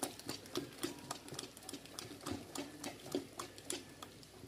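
A hand beating thick idli batter of ground urad dal and idli rava in a metal bowl: quick, regular wet slaps and squelches, about four strokes a second. The batter is being whipped with spread fingers to mix and aerate it so the idli come out light.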